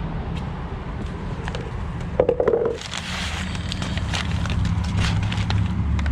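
Hand handling of metal car parts: a brief buzzy rattle about two seconds in, then a string of sharp clicks and scraping, over a steady low rumble.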